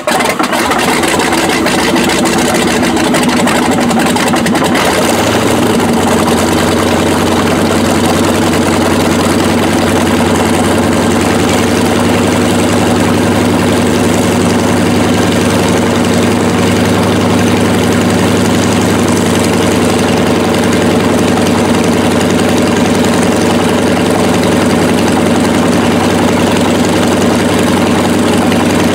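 A Yakovlev Yak-52's nine-cylinder M-14P radial engine, just fired up on start. It runs unevenly for the first few seconds, then settles into a steady idle with a deep, even hum from about five seconds in.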